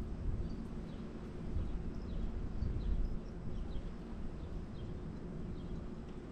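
Open-air ambience: a low, uneven rumble with faint, scattered bird chirps.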